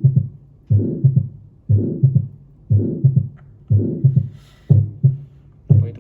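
Recorded heart sounds played back: a steady beat about once a second, each a low first heart sound with a murmur running on from it, then a shorter second sound.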